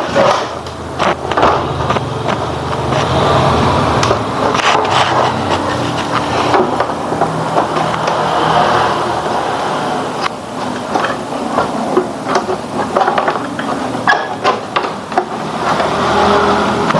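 The plastic back cabinet of a 14-inch CRT television is handled and fitted onto the set, with repeated knocks, clicks and scrapes of hard plastic over steady background noise.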